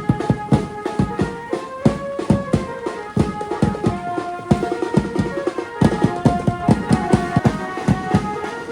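Garba dance music: a fast, steady drum beat of about three to four strokes a second under a held melody.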